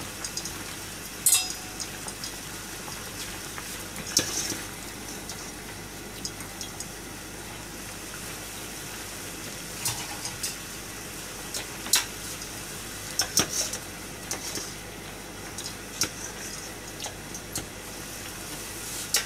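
Broad beans boiling in a copper pot of water on a gas burner: a steady bubbling hiss. Sharp clinks of a metal utensil against the pots come now and then as the beans are lifted out.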